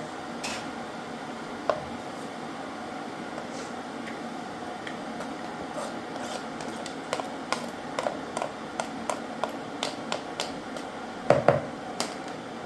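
Light clicks and knocks of objects being handled over a steady background hum. The knocks come more often in the second half, and the loudest are a close pair near the end.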